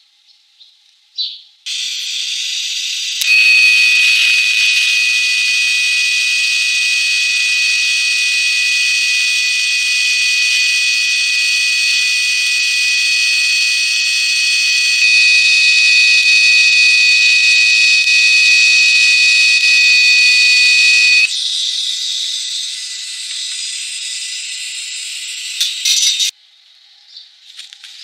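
TIG welding arc from a Telwin Maxima 200 Synergic multi-process welder, burning on steel plate with filler rod fed in: a loud, steady hiss with several steady high-pitched tones over it. The tones cut off about 21 seconds in, and a quieter hiss goes on until it stops shortly before the end.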